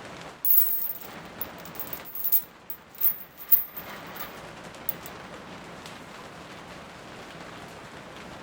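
Steady rain falling, with a cluster of close, sharp crackling noises over the first few seconds that are louder than the rain.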